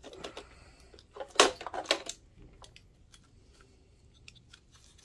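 Plastic lamp assembly of an Optoma HD180 projector being worked loose and lifted out of its lamp bay. There is a cluster of sharp plastic clacks about a second and a half in, then a few faint ticks.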